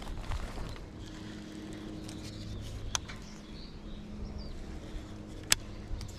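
A steady low motor hum from a distant engine, with faint bird chirps about midway and two sharp clicks, the louder one near the end.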